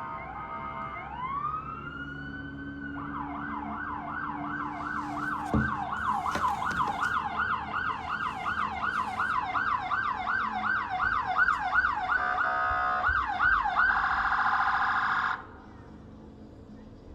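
Electronic emergency-vehicle siren winding up with a rising wail, then running a fast yelp of about two and a half sweeps a second. Near the end it switches to a rapid warble and then cuts off suddenly.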